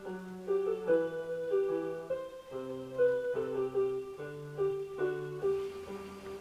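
Background music: a solo piano playing a slow melody over held bass notes.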